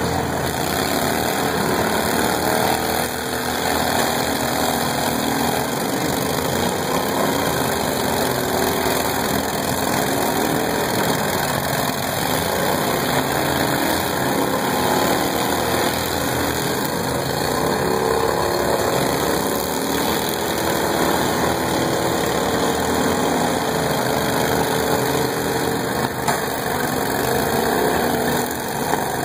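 Several small riding lawn mower engines running together, their pitch wavering up and down as the mowers speed up, slow and push against each other.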